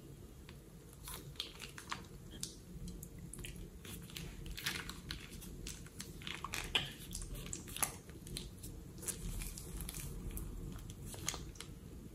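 A plastic piping bag crinkling and crackling as a hand squeezes it, pushing out sticky slime, in irregular clicks and crackles.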